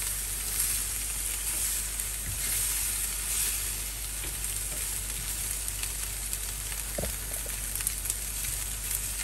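Chicken pieces sizzling steadily on a hot, smoking ridged grill pan as they are turned over, with a few light clicks against the pan.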